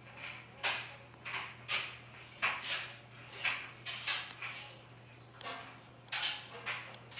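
A cat drinking by dipping its paw into a water bowl and licking the water off it: a run of short, wet licks and small splashes at an irregular pace of about two a second.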